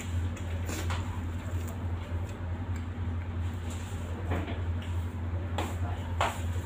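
A steady low hum runs under the scene, with a few short light clicks and clinks of dishes and utensils as men eat and drink at a table.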